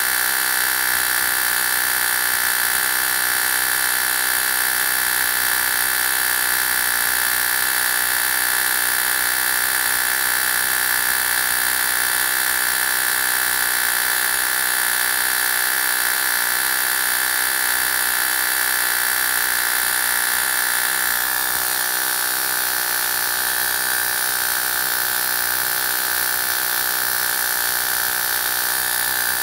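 High-voltage rig of a Cockcroft-Walton voltage multiplier running under power, giving a steady, high-pitched electrical whine with a hiss. Its tone changes slightly about two-thirds of the way through.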